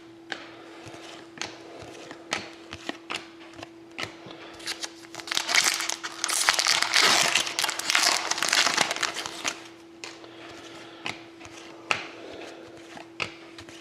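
A trading card pack's wrapper being torn open and crinkled for several seconds in the middle, with short clicks and taps of cards being handled before and after. A faint steady hum runs underneath.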